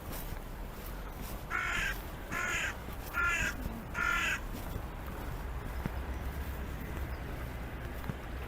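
A crow cawing four times in quick succession, each caw short and harsh.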